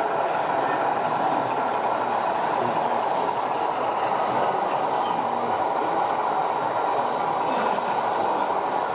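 Model British Rail Class 08 diesel shunter running slowly along the layout's track, over a steady background din.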